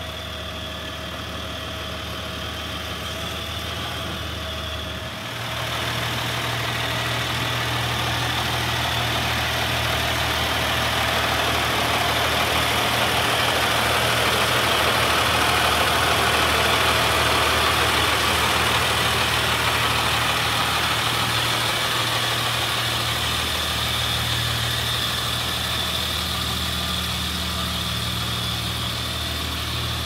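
Diesel engine of a 2001 Freightliner FS65 Blue Bird school bus idling steadily. It grows louder about five seconds in, is loudest around the middle, and eases slightly toward the end.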